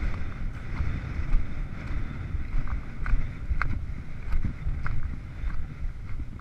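Wind buffeting the camera microphone as an uneven low rumble, with a few faint clicks scattered through it.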